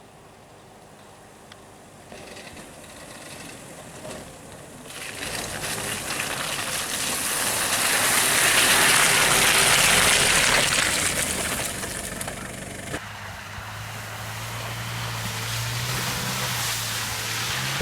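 An SUV driving through mud and water: a loud rushing splash swells to a peak and fades, then the engine note holds steady and rises near the end as it revs.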